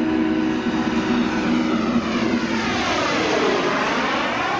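Engines of a radio-controlled B-2 Spirit flying-wing model as it flies past. A steady hum gives way about three seconds in to a sweeping whoosh as the model passes close.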